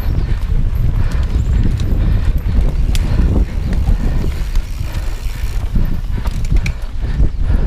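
Orbea Oiz mountain bike ridden fast over bumpy dirt singletrack, heard from a camera on the handlebars: a steady low rumble of wind on the microphone and trail vibration, with many small clicks and knocks from the bike and mount rattling over the ground.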